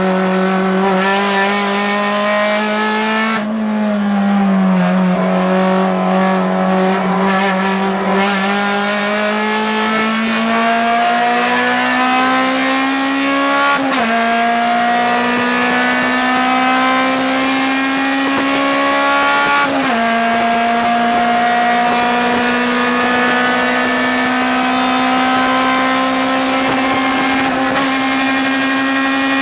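Acura RSX Type S race car's 2.0-litre four-cylinder engine at high revs, heard from inside the cabin, pulling hard with its pitch climbing slowly. The pitch drops suddenly about 14 and 20 seconds in at upshifts, then climbs again.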